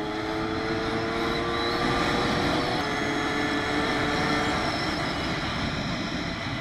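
Puch Magnum moped's 50 cc two-stroke single (Puch ZA50) running under way, its engine note climbing slightly over the first few seconds and then easing, with steady wind rush over the microphone.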